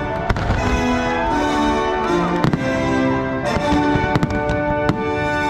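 Aerial firework shells bursting in a string of sharp bangs, several close together from about two and a half seconds on, over the show's soundtrack music with long held notes.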